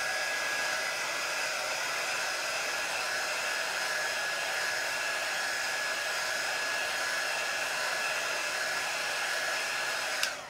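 Small handheld dryer blowing steadily with a constant whine, drying freshly squeegeed chalk paste on a silk-screen stencil. It switches off near the end.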